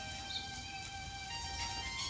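Instrumental background music with long held notes that change pitch now and then.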